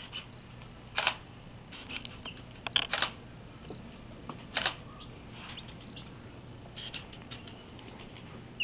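Baby chicks giving a few faint, scattered peeps, broken by several short knocks and rustles, the loudest about a second in, around three seconds and about four and a half seconds in.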